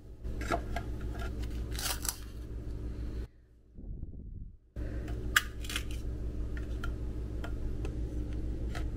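A plastic pour-over dripper and a glass being handled and set in place on a counter: scattered light clicks and knocks, the sharpest about five seconds in, over a steady low hum. The sound drops out briefly near the middle.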